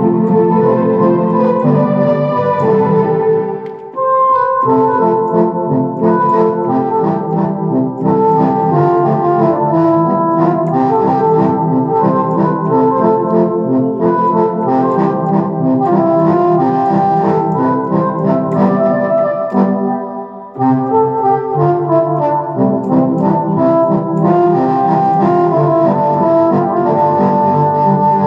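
Electronic keyboard played with both hands: a melody of held notes over chords in the lower part. The music drops out briefly twice, about four seconds in and again about twenty seconds in.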